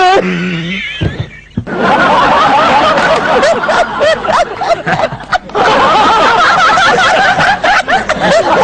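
Audience laughing, many voices together, breaking out about two seconds in.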